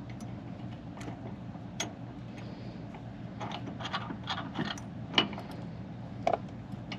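Small metal hardware clinking: washers, a lock washer and a bolt being handled and fitted by hand, in scattered light clicks with a quick run of them a little past the middle. A steady low hum runs underneath.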